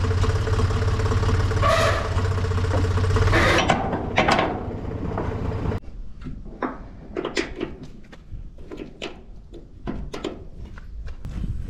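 An engine running steadily, cutting off abruptly about six seconds in, followed by a run of sharp knocks and clanks.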